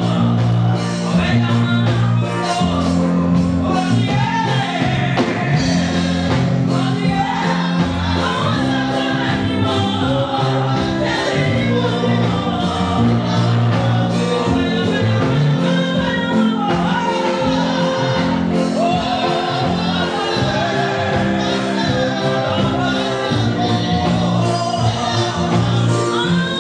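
A woman singing an upbeat gospel praise song into a microphone, over instrumental accompaniment with a steady beat and bass line.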